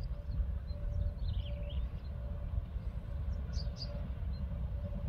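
Class 18E electric locomotives approaching in the distance: a low rumble with a faint steady hum that swells and fades. Birds chirp twice, once about a second in and again past the middle.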